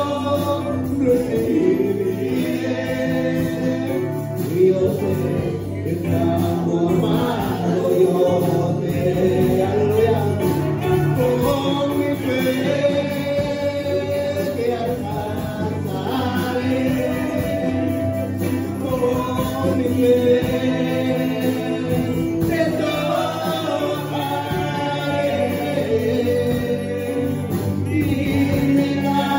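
Live worship music: several singers holding long sung lines together over electric keyboard accompaniment.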